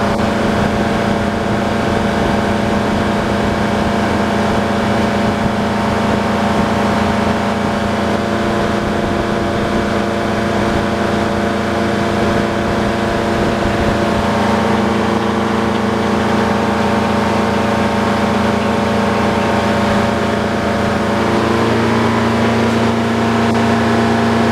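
Detroit diesel engine powering a circular sawmill, running steadily at a constant loud level, with a slight change in its low note for a few seconds in the middle.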